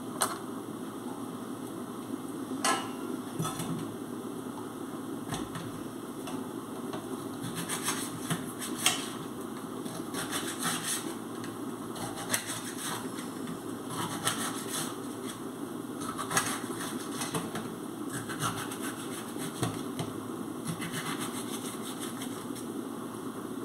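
Irregular clicks, taps and knocks of a knife and dishes as vegetables are handled and cut at a kitchen sink, over a steady low hum.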